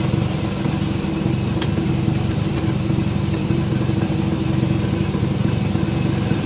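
Sawmill machinery engine running steadily at an even speed.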